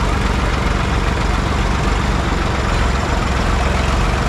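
Diesel engines of a New Holland 3630 and a Swaraj 855 tractor running steadily, the two tractors chained back to back and pulling against each other in a tug-of-war.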